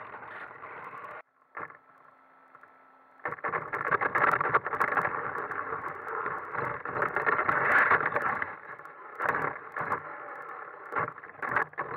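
RC car heard through its own onboard camera: motor and drivetrain running with rattling clicks and knocks from the chassis. The sound cuts off about a second in, leaving only a faint steady hum, then comes back louder about three seconds in, rising and falling with many sharp knocks.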